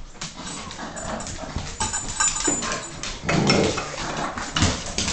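An American Staffordshire terrier and a Boston terrier play-fighting on a blanket over a hardwood floor: scuffling, fabric rustling and scattered claw clicks, with short dog vocal sounds. It grows busier about three seconds in.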